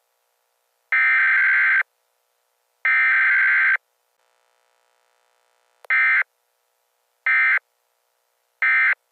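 NOAA Weather Radio's SAME digital alert code, a harsh warbling data tone, broadcast ahead of a snow squall warning. Two bursts of about a second each, a second apart, are followed after a pause by three short bursts.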